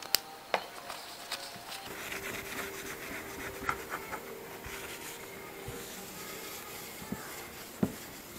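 A cloth rubbing along the steel blade of a sanggot sickle knife, wiping it down, with several sharp light clicks of the blade and fingers against the tile surface.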